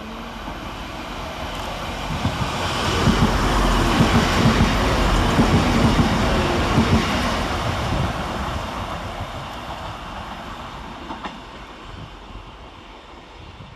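TransPennine Express Class 185 diesel multiple unit passing through the station. Its sound builds to a peak a few seconds in and then fades away, with the wheels clicking rapidly over the rail joints at its loudest.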